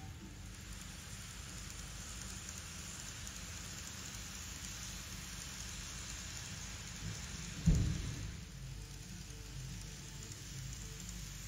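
Model electric trains, an Eidan Series 3000 and a Hokuso Type 7000, rolling along layout track, a steady rain-like hiss of wheels and motors. One sharp low thump about two-thirds of the way through.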